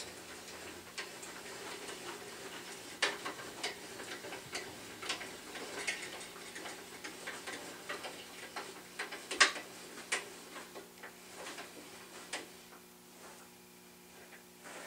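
Irregular metallic clicks and ticks as the drill press table is cranked up on its column rack toward the chuck, with one louder knock about nine and a half seconds in.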